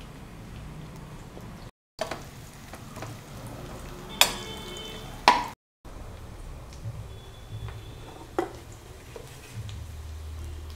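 Sliced onions frying in ghee in a pan, a low sizzle, with a spoon stirring and clinking against the pan several times; one clink about four seconds in rings like metal.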